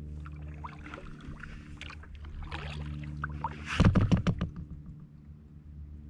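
Kayak paddling: paddle blades dipping and splashing in the water, with a burst of loud knocks and splashes about four seconds in. A steady low hum runs underneath.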